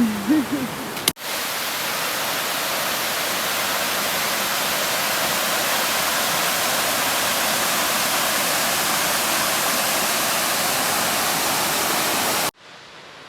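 Rushing water of a mountain waterfall close to the microphone: a steady, loud hiss that starts abruptly about a second in and cuts off just before the end.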